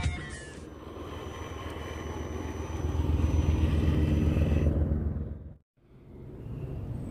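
Electric motor and gears of an Axial SCX10 RC rock crawler running with a steady whine over a low rumble, growing louder for a couple of seconds, then cutting out abruptly for a moment and resuming more quietly.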